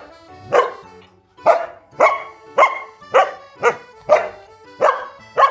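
A six-month-old standard poodle puppy barking repeatedly, about ten short, sharp barks at roughly two a second, with a brief pause after the second bark.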